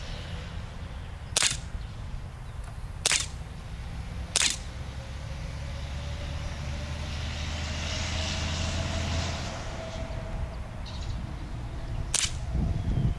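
Sig Sauer P226 X-Five CO2 BB pistol firing with its blowback action: three sharp cracks about a second and a half apart, then a single shot near the end.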